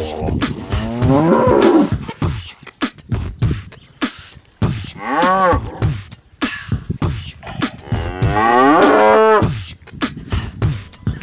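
A cow mooing three times, about a second in, around five seconds and a longer call near nine seconds, over a backing track of sharp percussive beats.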